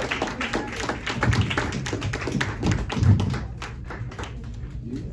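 A small audience clapping, thinning out about three and a half seconds in.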